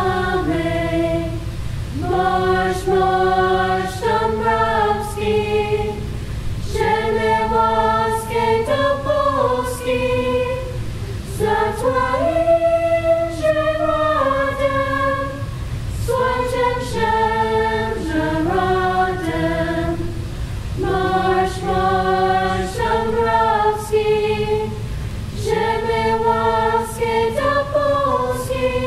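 High school a cappella choir singing a national anthem unaccompanied, in slow phrases of held chords with short breaks between them.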